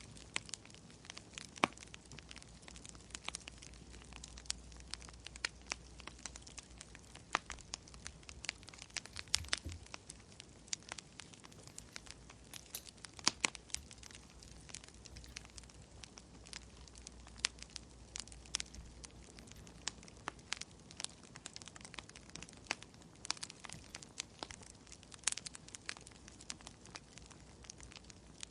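Wood fire crackling in a fireplace: irregular sharp pops and snaps, several a second, over a faint hiss and a low steady hum.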